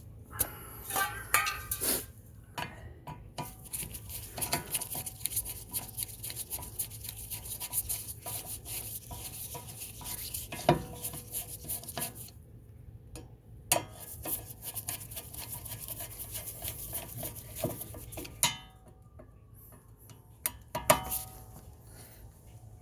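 Metal tools and brake parts clinking, scraping and knocking against each other as they are handled, with runs of rapid small clicks and a few sharper knocks.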